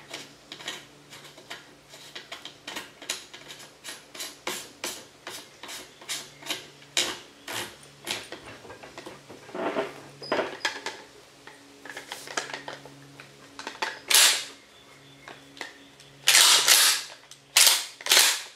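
Magazine cap being screwed back onto a GForce GF2P 12-gauge pump shotgun, giving a run of small clicks, a few a second. Near the end, a few loud metallic clacks as the reassembled pump action is worked.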